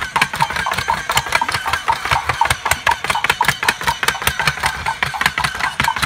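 Little Live Pets Snowy lamb electronic toy walking: its small motor runs under rapid, regular clip-clop clicks.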